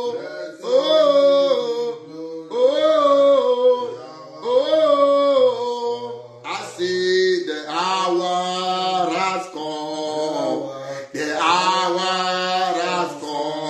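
A man singing a worship chorus: a short phrase four times about two seconds apart, then longer held lines from about seven seconds in.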